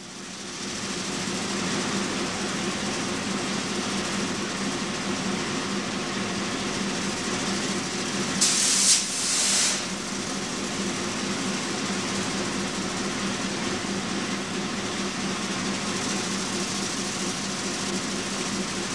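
N scale model locomotives running on the layout's track: a steady whir of small electric motors and wheels with a low hum, fading in at the start. A brief loud hiss in two parts comes about eight and a half seconds in.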